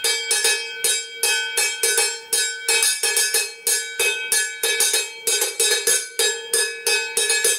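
Wooden spoons drumming on a lidded enamel pot, played as a makeshift drum: a quick, uneven rhythm of about three or four strikes a second. Each strike rings with a bell-like metallic tone.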